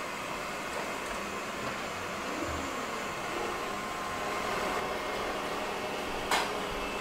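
Ecovacs Deebot robot vacuum cleaner running steadily as it cleans the floor. Near the end there is a single sharp click.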